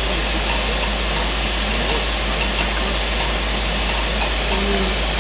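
Steady rushing hiss of steam from an LMS Black 5 steam locomotive while it is turned on the turntable.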